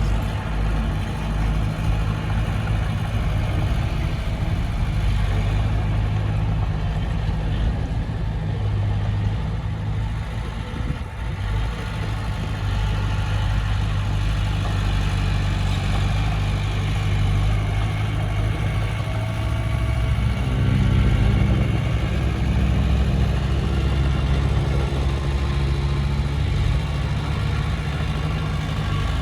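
Diesel engine of heavy earthmoving equipment running steadily. It changes pitch and gets a little louder about twenty seconds in.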